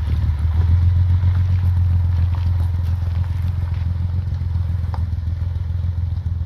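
Jaguar XKSS replica's engine running at low, steady revs as the car pulls slowly away, with a few light clicks over the engine note.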